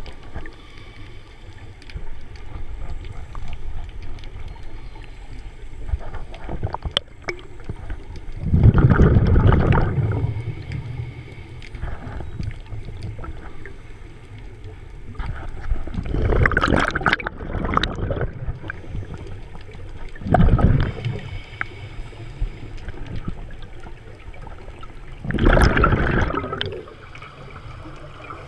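Scuba diver breathing through a regulator, heard underwater: exhaled bubbles gurgle past in four bursts of a second or two each, a few seconds apart, over a low steady rumble.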